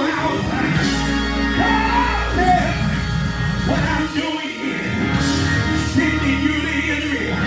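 Live gospel music: a voice singing, with shouts, over steady band accompaniment.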